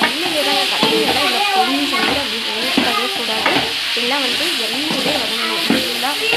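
Raw mango pieces, onion and garlic sizzling in oil in a metal kadai while a metal ladle stirs them, scraping and clicking against the pan. This is the sautéing stage of mango thokku.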